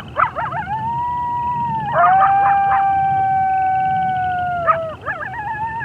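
Coyotes howling in chorus: several voices with quick yips at the start and again about two seconds in, long howls held at a steady pitch and dropping off at their ends, and a new howl starting near the end. A steady chorus of frogs trills underneath.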